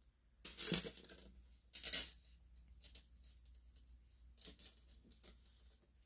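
A small metal chain clinking and rustling as it is handled and fastened onto an acrylic diamond-painting ornament, with two louder jingly bursts early on and a few faint clicks near the end.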